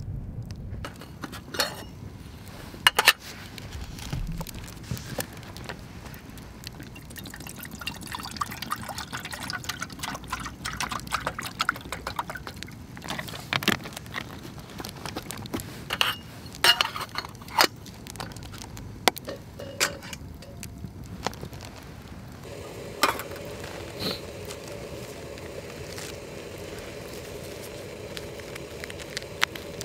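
Water poured into an aluminium camp kettle, with sharp clinks and knocks of aluminium Trangia cookware being handled and set together. About three-quarters of the way through, a steady low hum sets in and holds.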